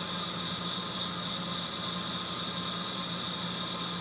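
Steady, unchanging hiss with a low hum beneath it, like equipment or fan noise.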